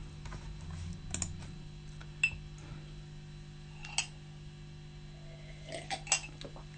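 Quiet pause with a steady low hum and a few small, faint clicks and knocks. A sip from a mug about four seconds in, with a couple more small handling sounds near the end.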